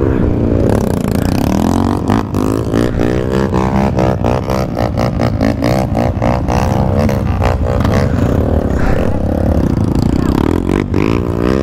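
Trail motorcycle engine revving up and down again and again in quick succession, the throttle worked hard on a slippery uphill climb.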